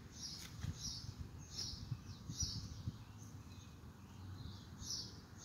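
A songbird chirping over and over, short high notes about one or two a second with a short pause partway through, over faint low knocks and rustling.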